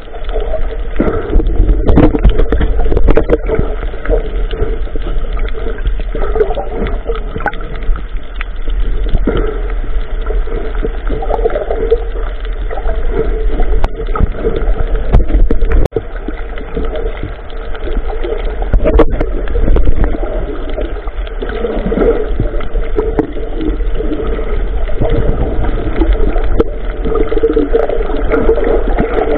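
Water sloshing and gurgling against a small boat, over a steady low rumble, with a few scattered knocks.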